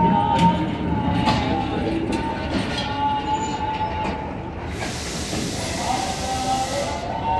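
Passenger train moving slowly through a railway station, with wheels squealing in steady high tones and the sharp clicks of wheels crossing rail joints. A hiss rises about five seconds in and stops about two seconds later.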